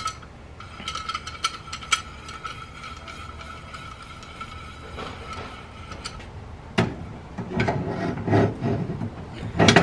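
Large steel C-clamp being worked by hand: light clicks and scraping as its threaded screw is turned, over a steady high tone. About 7 s in comes a sharp metal knock, then louder clanking and clatter as the clamp is set against steel plates, ending in a loud click.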